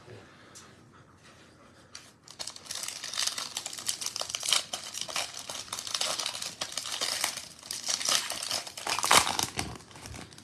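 Foil wrapper of a 2021 Panini Prizm football card pack being torn open and crinkled by hand. It starts about two seconds in and is loudest near the end.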